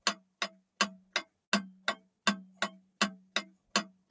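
Cartoon countdown-clock ticking sound effect: a steady, even tick-tock at nearly three ticks a second, marking the time running out on the on-screen timer.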